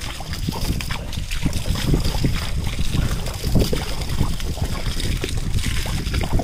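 A stream of water splashing steadily over a whole raw skinned carcass and the metal tray beneath it, rinsing off the blood and dirt.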